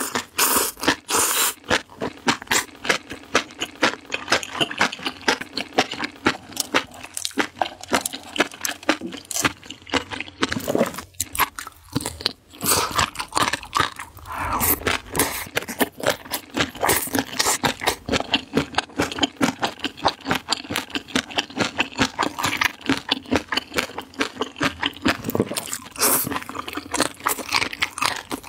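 Chewing and crunching mouthfuls of spicy enoki mushrooms, a quick, continuous run of wet crunching clicks with brief lulls between bites.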